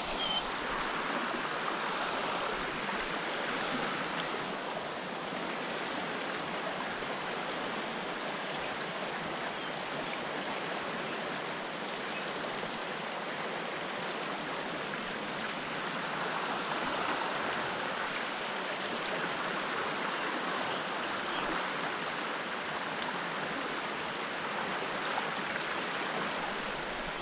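Fast-flowing river current running past the bank: a steady, even wash of water noise.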